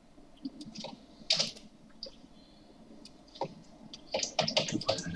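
Computer keyboard keys tapped and a mouse clicked in a few scattered strokes, as a command and a value are typed in.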